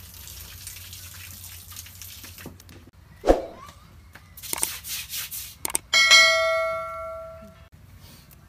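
A sharp knock, some short rustles and a click, then a bright bell ding that rings out and fades over about a second and a half: the notification-bell sound effect of a subscribe-button animation.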